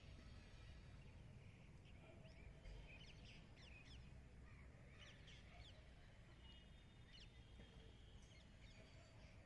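Near silence with faint, quick bird chirps, clustered between about two and six seconds in, over a low steady background hum.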